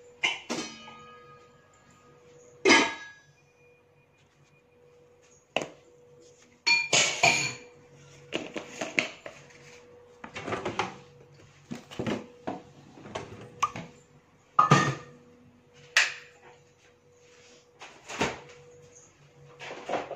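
Kitchenware clattering: a dozen or so irregular knocks and clatters of pots, dishes and utensils being handled. The first two strikes ring on briefly like metal, over a faint steady hum.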